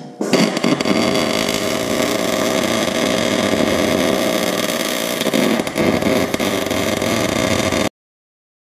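MIG welder arc crackling steadily as the spider gears of a truck differential are welded to each other to lock it. The crackle starts about a third of a second in and cuts off abruptly near the end.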